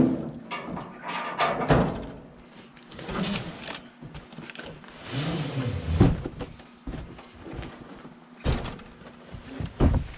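A large cardboard box being loaded into a pickup bed and pulled back out: several dull thunks, with a scraping, sliding stretch about halfway through.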